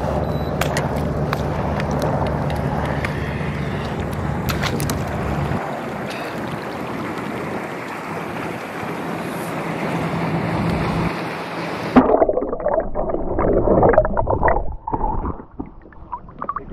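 Wind and water sloshing around a fishing kayak, with a steady low hum. About three-quarters in, the sound turns muffled and louder, with irregular splashing close by as a hooked hammerhead shark comes up at the surface alongside the kayak.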